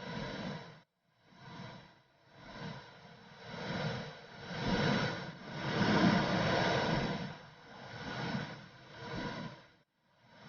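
Womb sound for soothing a baby: a whooshing noise that swells and fades in a slow pulse a little under once a second. It cuts out briefly twice, once about a second in and once near the end.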